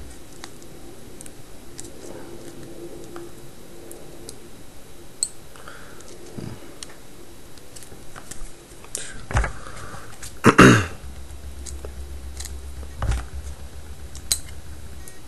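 Small clicks and scrapes of plastic and metal parts being handled and pried as an HTC Inspire phone is taken apart, with a louder brief rustling knock about ten seconds in.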